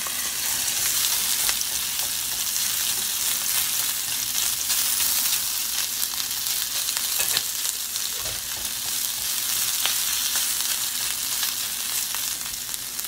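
Sliced beef hot links frying in oil in a cast iron skillet, stirred with a wooden spatula: a steady high sizzle with scattered small pops and crackles.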